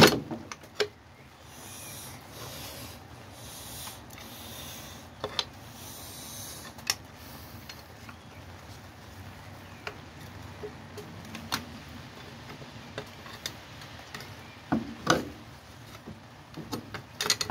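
Scattered clinks and knocks of hand tools against car parts, with a few seconds of scraping strokes in the first half and a cluster of louder knocks near the end.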